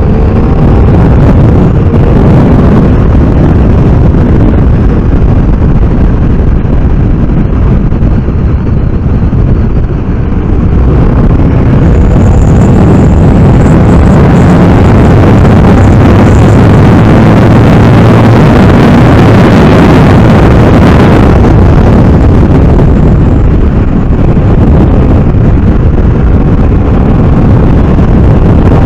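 Loud wind rush buffeting the microphone of a BMW F800R motorcycle ridden at speed, with the bike's parallel-twin engine faintly heard under it, its pitch rising near the start and again near the end.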